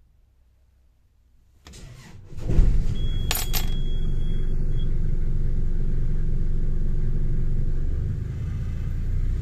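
Nanni marine diesel engine cold-started after preheating: the starter cranks briefly under two seconds in, the engine catches at once and settles into a steady idle. A couple of clicks and a short high tone come just after it catches.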